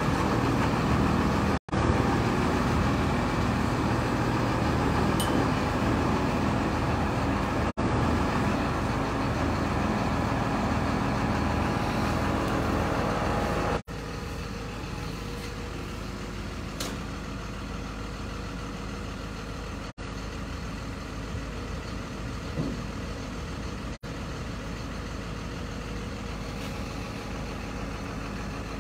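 Heavy diesel engine idling steadily, louder for the first fourteen seconds and quieter after, with several short breaks in the sound.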